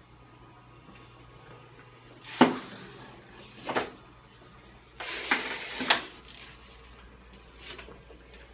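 Two sharp clacks, then about a second of hissing noise ending in another clack, from the stainless steel tape turnup unit and its paper tape.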